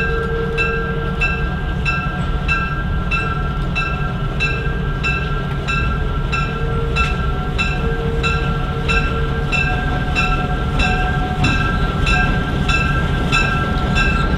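Diesel locomotive running with a steady low rumble while its bell rings at an even pace, about three strikes every two seconds.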